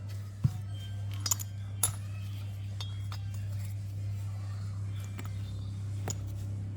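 Several sharp metallic clinks, like hand tools or small metal parts knocking together, with the loudest about half a second in, over a steady low hum.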